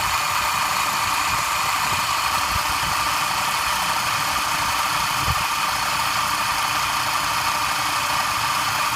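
Vacuum hold-down pump of a diamond core drill rig running steadily, holding the drill stand's base pad sucked down to the floor. A constant hissing machine noise with no change in pitch.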